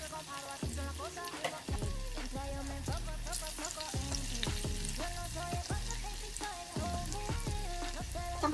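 Tofu cubes sizzling as they deep-fry in hot oil in a wok, a fine, steady crackle. A tune plays along with it.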